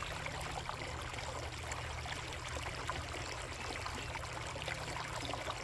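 Koi pond water steadily trickling and splashing, as from a waterfall or fountain, over a steady low hum.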